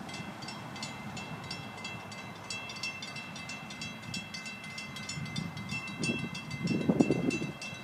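Railroad grade-crossing warning bell ringing steadily, about three strikes a second, over a low rumble. A louder low noise swells near the end.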